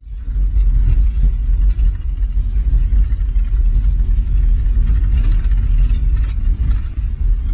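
Car driving on a rough dirt road, heard from inside the cabin: a loud, heavy rumble of engine and tyres with frequent rattles and knocks from the bumps.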